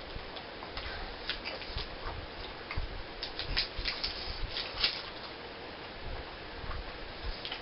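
Wet chewing of a very full mouthful of gum, with irregular short smacks and clicks, busiest in the middle.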